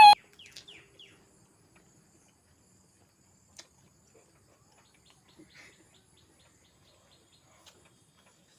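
A laugh cuts off at the start, then near silence with a faint high background tone and a few soft, scattered clicks.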